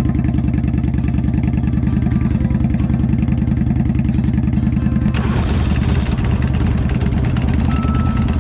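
Motorcycle engine running at a steady idle with a fast, even pulsing beat. About five seconds in, a harsher rushing noise joins it.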